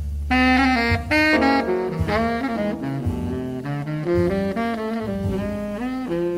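A saxophone playing a slow, melodic jazz ballad solo, one note after another, with a double bass underneath.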